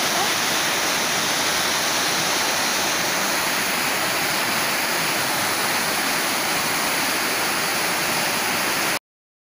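Muddy flash-flood water rushing steadily down the river channel, the head of a flood surge carrying runoff from rain upstream in the hills. The rushing cuts off abruptly near the end.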